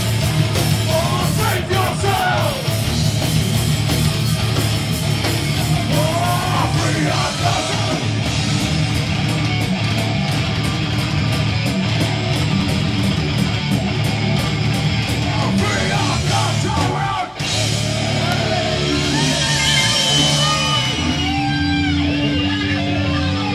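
Heavy metal band playing live: distorted electric guitars and pounding drums at full volume. There is a brief drop about 17 seconds in, then a held guitar note with bending lead-guitar lines near the end.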